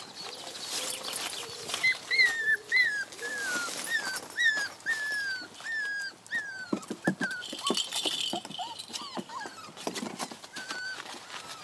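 Entlebucher Mountain Dog puppies whining: a run of about ten short, high, falling whines, followed by shorter, lower yips. A few sharp knocks come just past halfway.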